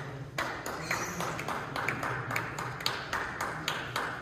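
Table tennis rally: the ball clicks sharply off the bats and table in quick succession, about five clicks a second.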